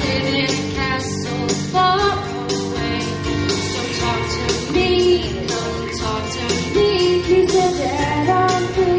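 Two girls singing a duet into handheld microphones over instrumental accompaniment, one sustained sung melody line after another.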